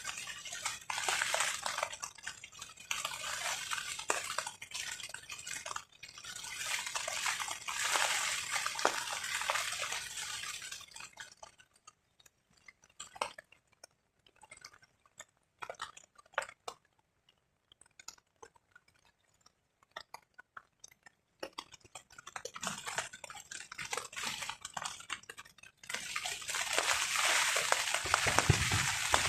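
Rain and wind on a tarp coming in surging gusts of hiss. About halfway through it dies down to scattered single drops tapping on the tarp, then builds again over the last few seconds.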